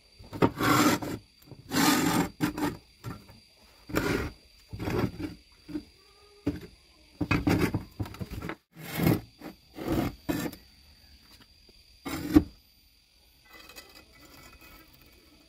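Pieces of steel angle iron being picked up, set down and shifted on a workbench: about a dozen separate knocks and clatters of metal on the bench with scraping between them, the loudest a sharp knock near the end of the series. After that, only faint rubbing.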